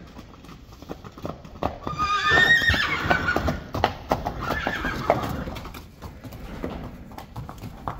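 Young Friesian horses' hooves clopping on wet concrete as several horses move together into a stable, with a loud whinny about two seconds in and another about five seconds in.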